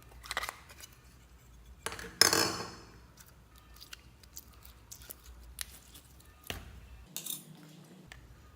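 Slime being mixed and handled, with scattered clicks and knocks of hard containers or utensils. The loudest is a sharp knock about two seconds in that fades over most of a second.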